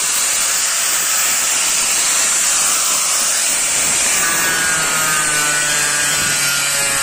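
Electric angle grinder running with a wire wheel scrubbing along the seams of a sheet-metal caravan wall, cleaning the joints to prepare them for sealant. It makes a steady, loud, high hiss, and the motor's whine comes through more clearly about four seconds in.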